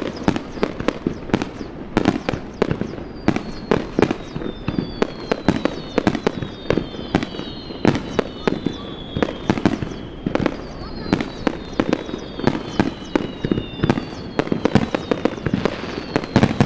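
Fireworks display: a rapid, irregular run of bangs and bursts, several to the second. Over them run several high whistling tones, each gliding slowly down in pitch over a few seconds.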